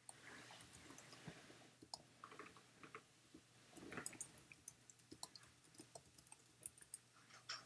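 Faint, irregular clicking of computer keyboard keys being typed.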